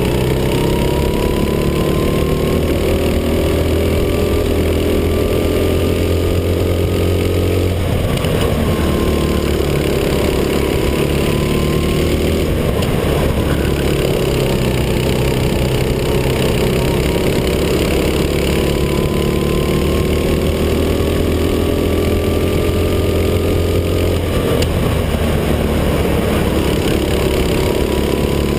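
Onboard sound of a racing kart's engine under throttle, its pitch climbing steadily down the straights and dropping sharply three times when the driver lifts off for corners.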